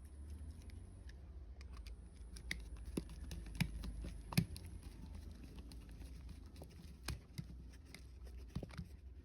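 Small clicks and rustles of a wire being handled and fitted to push-button terminals, with a few sharper clicks about three and a half and four and a half seconds in, over a low steady hum.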